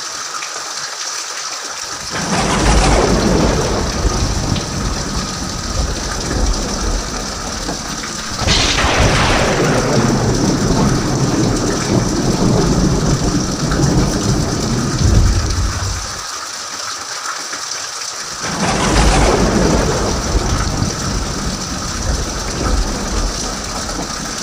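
Thunderstorm: steady heavy rain hiss with three long rolls of thunder, the first about two seconds in, another near a third of the way through and the last in the second half, each swelling up and fading over several seconds.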